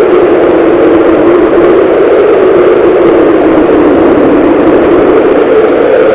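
Cartoon-style wind sound effect: a loud, steady blowing of wind whose pitch sinks slightly through the middle and rises again near the end.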